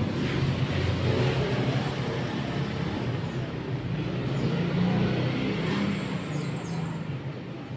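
JETSpin CR-5500 carpet spinner running, its motor and drum spinning with a steady low hum over a broad whooshing noise.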